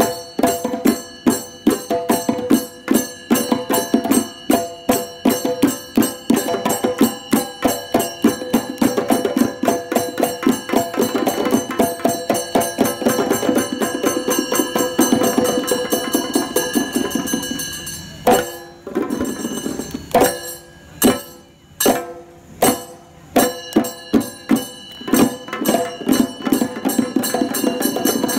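Kumbazha melam, a Kerala percussion ensemble of hand-played drums and ringing brass cymbals, playing a fast, dense rhythm. About 18 seconds in, the fast strokes stop for a handful of widely spaced, accented strokes, and the dense playing resumes about five seconds later.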